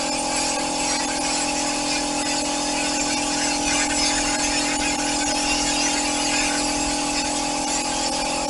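Air-fed spray gun spraying upholstery glue: a continuous hiss of compressed air and spray, with steady whistling tones under it.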